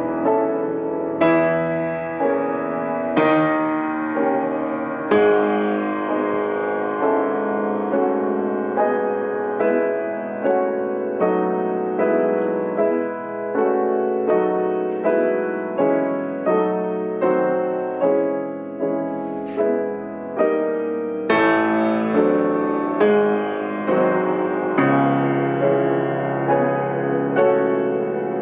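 Background piano music, with notes or chords struck about once a second at an even, unhurried pace.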